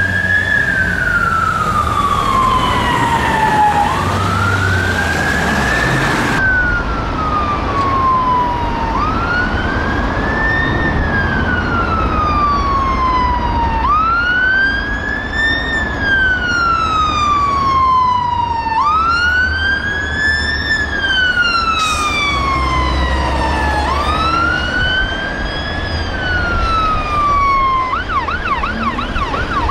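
Emergency vehicle wail siren sweeping up quickly and down slowly, about once every five seconds. It comes from a police van for the first few seconds and then from a Scania 94P fire engine. Near the end the fire engine's siren switches to a fast yelp, over a low diesel engine rumble.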